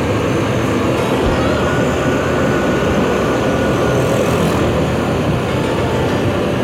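Steady noise of a motorcycle ride: wind and road noise on the microphone, mixed with engine sound, while following a tour bus.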